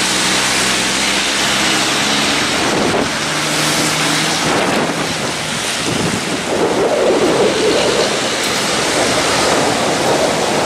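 Wind buffeting the microphone over the hiss of traffic on a wet road. A heavy truck's engine drones low at first and fades about three seconds in, and the rumble swells again in gusts over the last few seconds.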